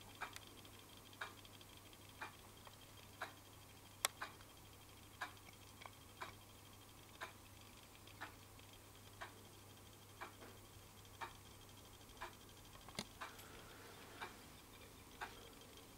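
A clock ticking about once a second in a quiet room, with a louder click about four seconds in. A faint steady hum sits underneath.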